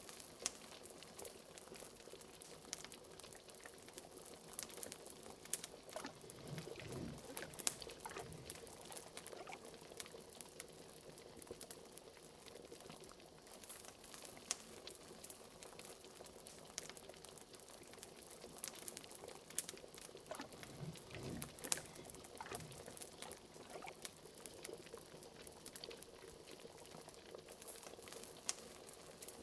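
Liquid bubbling in a pot, with a steady stream of small pops and clicks and an occasional deeper bloop.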